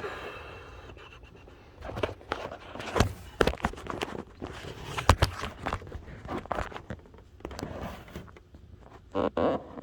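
Footsteps and irregular knocks, clicks and scuffs of someone moving about and handling things.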